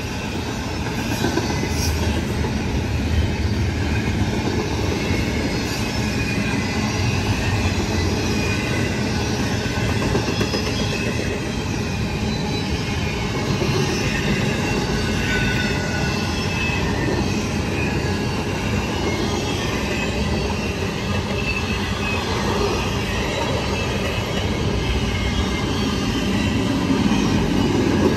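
Intermodal freight train's double-stack well cars rolling past at speed: a steady rumble and clatter of steel wheels on the rails, with faint high wheel squeal drifting in and out.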